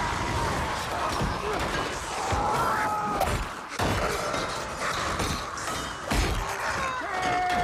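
Film battle sound effects: repeated weapon blows and crashing impacts, with yelling and high screeching cries among them.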